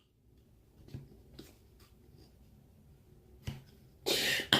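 Faint clicks and taps of a small plastic toothbrush case being handled while trying to get the toothpaste open, with a sharper knock about three and a half seconds in and louder plastic rattling near the end.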